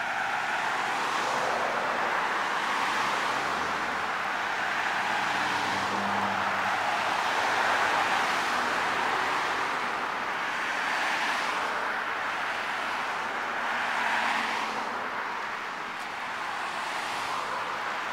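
Road traffic noise, with vehicles swelling past and fading every few seconds.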